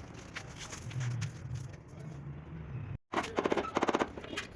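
Low background murmur, then after a sudden cut a quick run of sharp taps or knocks, about a dozen in under a second, followed by a few scattered clicks.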